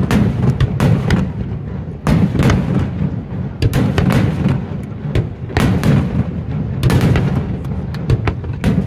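Aerial fireworks bursting overhead in quick succession: an irregular run of sharp bangs, about two or three a second, over a continuous low rumble.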